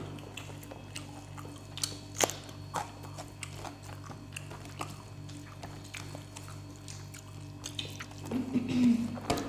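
Two people eating rice and fish curry by hand: scattered wet clicks of chewing, lip smacks and fingers working food on the plates, over a steady low hum, with a louder stretch near the end.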